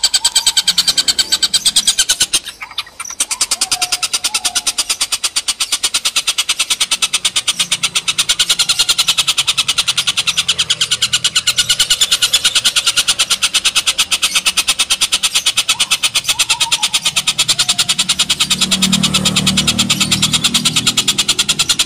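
Oriental dollarbird calling in a long, fast chatter of rapidly repeated notes, broken briefly about two and a half seconds in.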